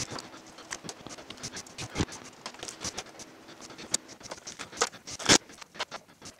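Irregular light clicks and taps of small bolts being set by hand into the holes around an electric-vehicle battery pack's upper cover, with a couple of louder knocks.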